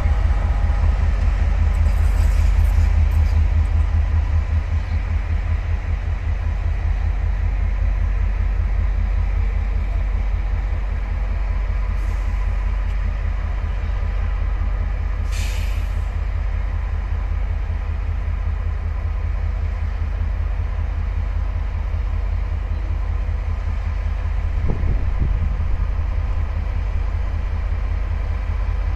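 Diesel-electric shunting locomotive's engine running as it moves slowly through the yard, a steady low rumble. About fifteen seconds in there is a short hiss of released air.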